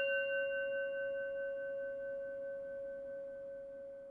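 A single struck bell ringing out: one steady low tone with fainter higher overtones, fading slowly with a slight waver.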